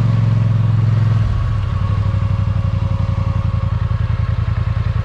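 An ATV engine running steadily, then easing off about a second in to a lower, pulsing note close to idle.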